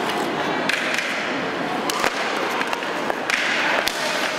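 Ice hockey sticks clacking against each other and the puck in a faceoff and the scramble that follows, several sharp separate knocks, over skates scraping on the ice.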